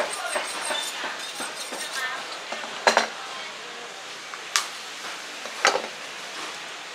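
Butcher's knife working through a raw pork leg on a wooden block, with three sharp clacks of the blade, the loudest about three seconds in. Faint voices in the first two seconds.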